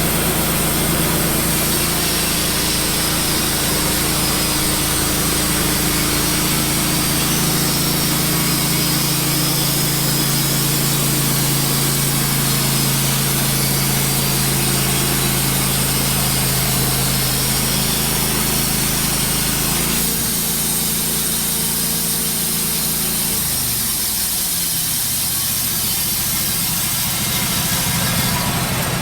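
Wood-Mizer LT15 bandsaw mill running, its band blade cutting through an ash log on the opening cut. About three quarters of the way through, the engine note drops in pitch and settles lower.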